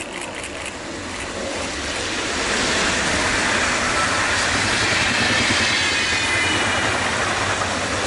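Stadler FLIRT electric multiple unit passing at speed. It grows louder over the first three seconds into a steady rush of wheels on rail and air, with a faint high whine in the second half.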